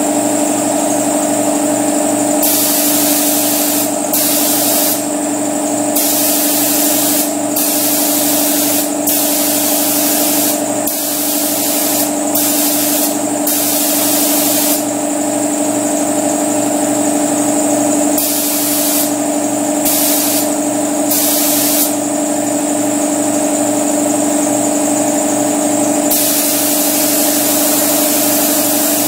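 Paint spray gun spraying primer in bursts, its air hiss starting and stopping as the trigger is pulled and released, about a dozen times. Underneath, a motor runs steadily with a fast, even pulse.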